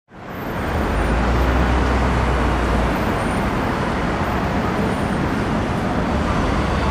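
Steady road traffic noise, fading in at the start, with a deep rumble over the first few seconds.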